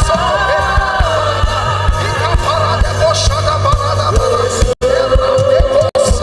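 Live gospel worship music: voices singing long, wavering notes over a steady bass line and drum hits. The sound cuts out twice for an instant near the end.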